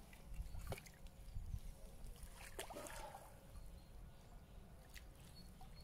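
Faint water splashing and sloshing from a hooked rainbow trout being played and landed at the lake surface, a few small splashes over a low steady rumble.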